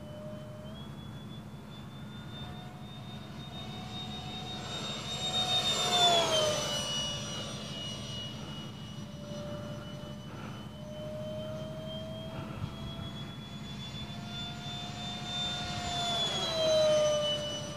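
Electric ducted fans of a Dynam Me 262 RC model jet whining as it flies past twice, about six seconds in and again near the end. Each pass grows louder and then drops in pitch as the jet goes by.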